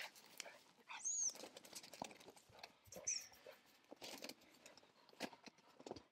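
Footsteps and rustling in frosty grass and brush as a spaniel and handlers move about, with two short high squeaks, about a second in and about three seconds in.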